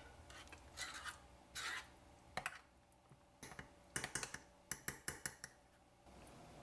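A metal spoon stirring thick ketchup sauce in a small bowl: faint scrapes, then a quick run of light clinks and taps against the bowl about four to five seconds in.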